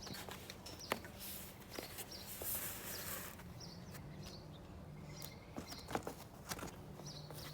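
Hands fitting a foam cover onto a plastic decoration frame: scattered clicks and knocks with a stretch of rustling, while small birds chirp now and then in the background.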